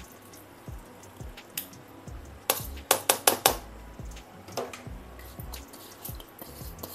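A red plastic strainer and a steel bowl clinking while soaked mustard seeds are drained. About two and a half seconds in there is a quick run of about five sharp knocks, the strainer being rapped against the bowl to shake the seeds off it.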